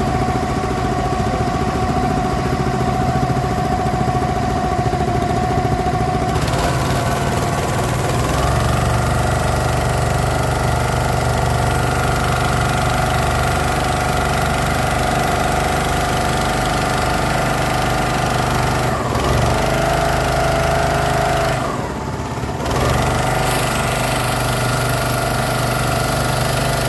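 Motorboat engine running steadily with a knocking rumble. Its pitch shifts abruptly a few times.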